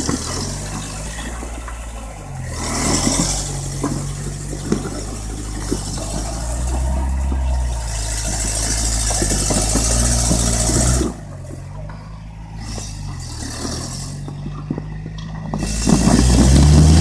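Toyota pickup rock crawler's engine running at low revs while it climbs a rock ledge, with rises and falls of throttle and scattered knocks and scrapes of tyres and chassis on rock. The engine sound drops off suddenly about eleven seconds in, then the revs climb to the loudest stretch near the end.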